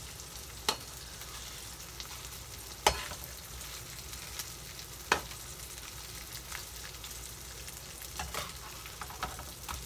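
Salted mackerel fillets sizzling steadily in a nonstick frying pan, with a few sharp clicks as the spatula knocks against the pan, the loudest about three and five seconds in.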